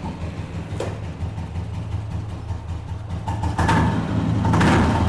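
Single-cylinder engine of a 1995 Royal Enfield Bullet, just started and running at idle, with a steady low beat. It gets louder twice near the end with short blips of the throttle.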